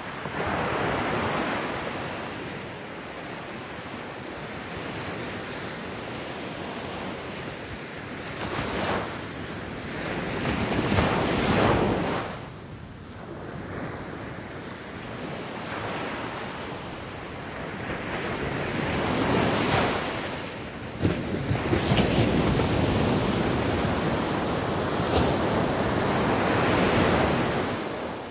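Ocean waves breaking on a beach, each surge swelling and then falling back over several seconds.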